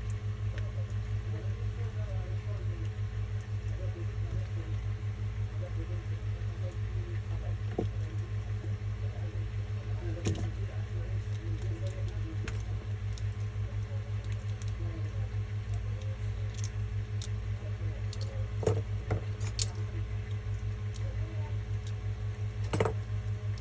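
A steady low electrical hum with a pulsing buzz. Occasional small clicks and taps sound over it, a few sharper ones about ten seconds in, around eighteen to nineteen seconds and near the end.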